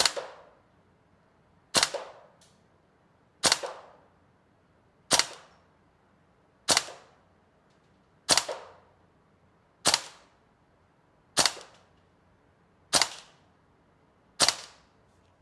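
Tokyo Marui AKM gas blowback airsoft rifle firing ten single shots, evenly spaced about one and a half seconds apart, during a muzzle velocity check with 0.2 g BBs. Each shot is a sharp report with a short ringing tail.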